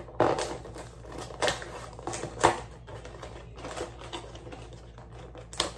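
Cardboard cereal box being opened by hand: irregular crackling and tearing of the box top, with a few sharper snaps.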